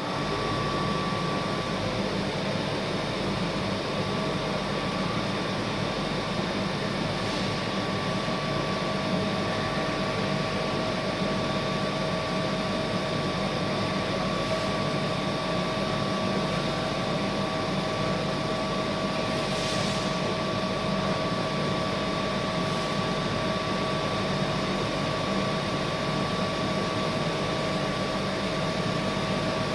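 Powered-up Matsuura H.Plus-405 horizontal machining center humming steadily, a constant whirring drone with two faint steady whining tones, while its G-Tech 840DI CNC control boots.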